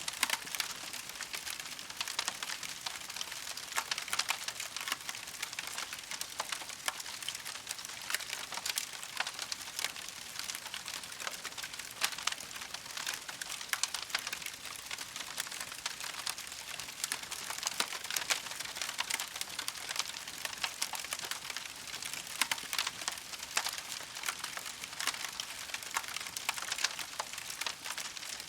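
Campfire crackling steadily: a dense stream of small sharp snaps and pops over a soft hiss.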